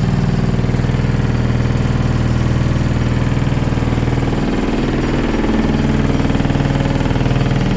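Simulated earthquake: a loud, steady, low mechanical rumble with a fast rattling pulse, shifting slightly in pitch about halfway through.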